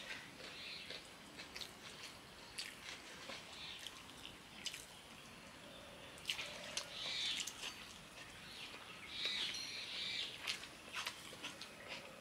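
Eating sounds of chicken biryani eaten by hand: scattered wet mouth clicks and smacks of chewing, with fingers squishing and mixing rice on banana leaves.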